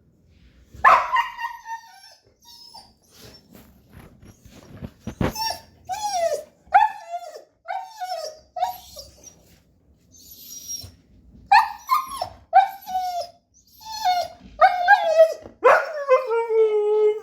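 Siberian husky vocalising in short whining calls that fall in pitch, in clusters, ending in a longer drawn-out call near the end: the husky asking to go outside. One sharp knock about five seconds in.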